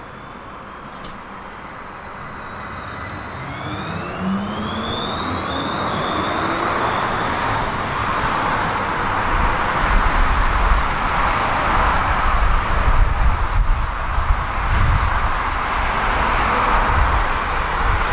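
Electric tram running through the stop: the motor whine rises in pitch a few seconds in, and the wheel-on-rail rumble grows louder throughout.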